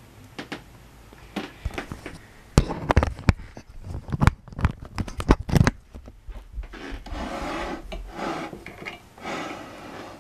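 Handling of a vintage table fan's switch: scattered clicks, then a quick run of clicks and knocks, then several rough rubbing sounds near the end. The fan is not running.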